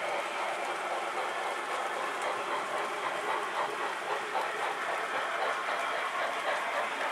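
Model Santa Fe 4-8-4 steam locomotive running on its layout track: a steady, rushing steam-train sound with wheel noise from the model.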